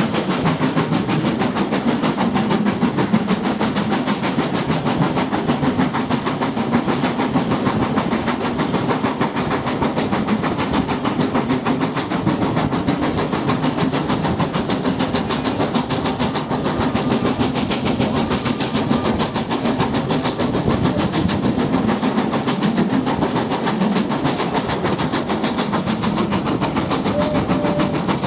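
Steam-hauled passenger train running at speed, heard from an open carriage window: a steady rumble and rattle of carriage wheels on the rails with rushing air.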